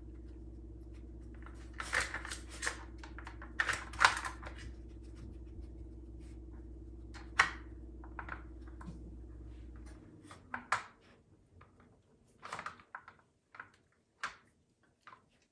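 Plastic dog puzzle feeder being worked by a puppy: irregular clicks and clatters as its lids and sliders are nosed and pawed aside. A steady background hum stops about two-thirds of the way through.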